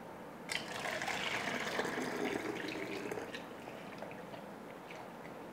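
Hot pandan water poured from a plastic measuring jug through a plastic funnel into a plastic bottle, trickling as the bottle fills. The pour starts about half a second in and tapers off after about three seconds.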